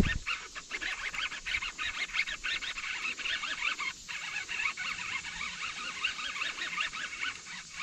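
A busy chorus of short, quickly repeated high-pitched animal calls, running on throughout, with one sharp hit at the very start.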